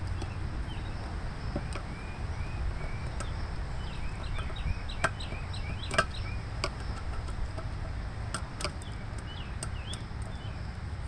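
Screwdriver clicking as Phillips screws are backed out of a Briggs & Stratton Classic carburetor on its plastic gas tank: scattered sharp clicks, two louder ones about five and six seconds in. A bird chirps at intervals, with a quick run of short notes around the middle.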